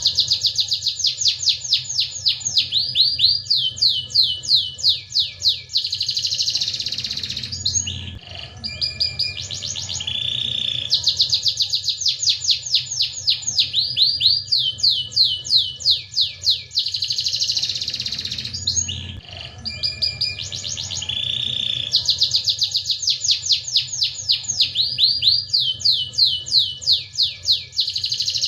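Domestic canary singing in full song: fast rolling trills and rapid runs of repeated notes, the same long song phrase coming round about every eleven seconds. A faint steady low hum runs underneath.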